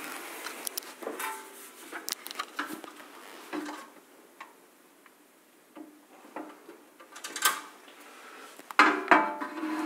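Metal parts of a valve amplifier kit being handled on a bench: scattered clinks and knocks, quieter for a couple of seconds around the middle, with louder knocks near the end.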